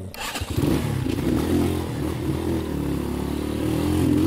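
Motorcycle engine running after being started, its pitch wavering up and down as it is revved; it comes in about half a second in.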